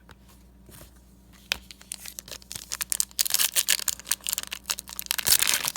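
Foil trading-card pack wrapper crinkling and tearing as it is ripped open by hand. It starts about a second and a half in and gets louder and busier toward the end.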